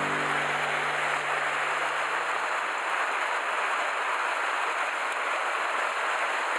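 Mountain stream rushing over small cascades between boulders: a steady, even rush of white water.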